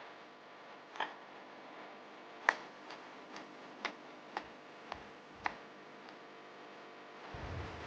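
A series of sharp knocks or clicks, about eight of them at irregular intervals of roughly half a second to a second, the loudest about two and a half seconds in, over a faint steady background; a brief low rumble near the end.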